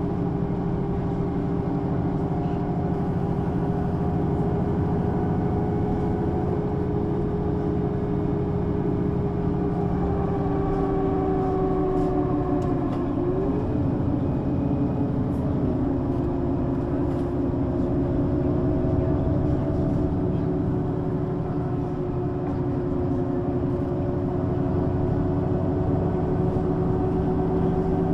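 Mercedes-Benz O 530 G Citaro articulated bus with ZF automatic gearbox, heard from on board: the diesel engine and drivetrain running steadily with a steady whining tone. The tone sags slightly about ten seconds in and shifts briefly a few seconds later before settling again.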